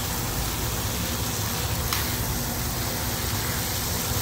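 Octopus, tomato and green onion sizzling in a frying pan on the stove while being stirred with a silicone spatula: a steady hiss, with a single click about two seconds in.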